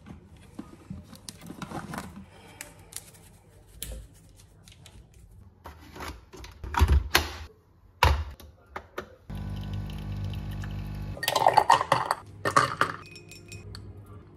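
Kitchen handling: scattered knocks and clinks of glassware and objects on a stone counter. About nine seconds in, a Bosch pod coffee machine's pump runs with a steady hum for about two seconds. A burst of louder clatter follows.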